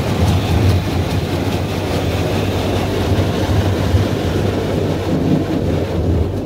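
Automatic car wash working over the car, heard from inside the cabin: water spraying against the windows over the wash machinery's steady low rumble.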